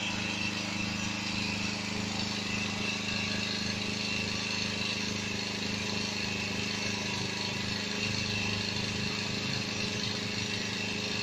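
Honda EG1000 portable generator running steadily on gas fuel through a converter kit, an even engine hum. Engine speed holds steady as a lamp load is switched on.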